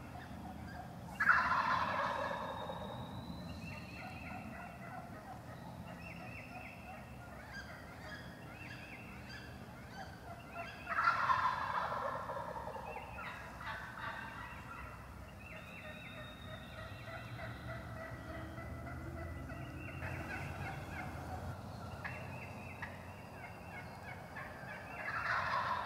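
Wild turkey gobbler gobbling three times, about ten to twelve seconds apart: each gobble is a loud, rapid rattling call that falls in pitch, heard near the start, about halfway through and again at the very end.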